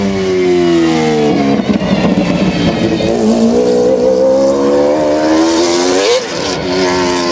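McLaren F1 GTR's V12 running hard on track. Its pitch falls at first, then climbs steadily under acceleration to a peak about six seconds in and drops sharply.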